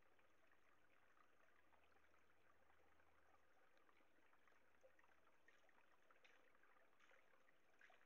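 Faint, steady trickle of a small stream, with a few soft clicks in the second half.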